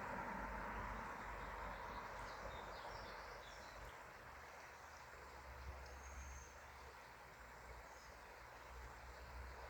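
Faint steady rush of a valley stream, with scattered bird chirps and a brief high whistle about six seconds in; a low rumble grows near the end.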